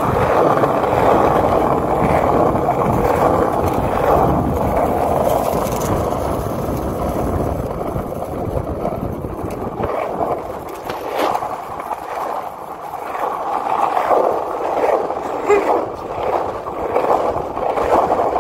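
Small hard wheels rolling over a concrete deck, a steady rolling noise that gets lighter about halfway through, with a few short clicks and knocks near the end.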